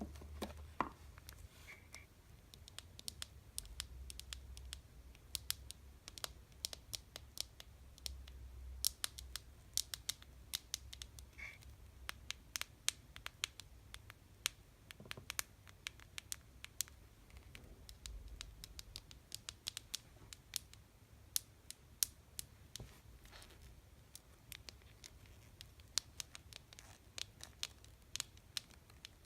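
Fingers tapping on candy boxes: light, sharp taps coming quickly and irregularly, often in small clusters.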